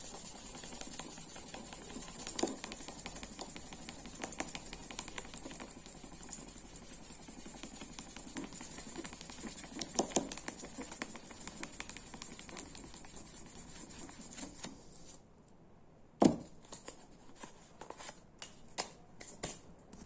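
Fine 3000-grit sandpaper rubbed by hand back and forth over the translucent plastic scale of a Victorinox pocket knife, a steady fine scratching that stops about three-quarters of the way through; this is the last, finest sanding stage before polishing. Then a single sharp knock and a few lighter taps.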